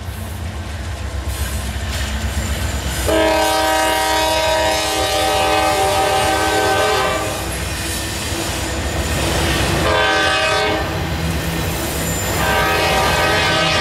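Norfolk Southern diesel freight locomotive's air horn sounding a long blast about three seconds in, a short one about ten seconds in and another long one near the end, completing the grade-crossing signal. Underneath is the steady low rumble of the locomotives and the wheels of the autorack cars rolling past.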